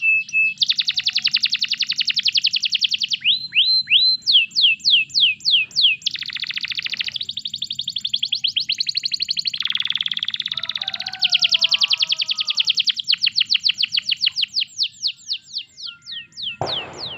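Domestic canary singing a long, varied song: fast trills of rapidly repeated notes alternating with runs of descending whistled sweeps, switching to a new phrase every second or two. A brief burst of noise cuts in near the end.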